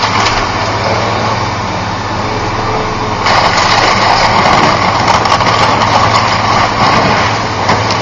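Engine of heavy demolition machinery running steadily, with a louder rush of noise joining about three seconds in.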